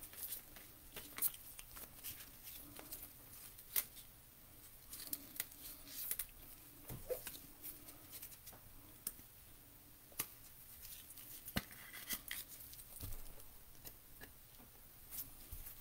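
Stack of Donruss basketball trading cards being flipped through by hand: faint, irregular clicks and light rustles of card sliding against card.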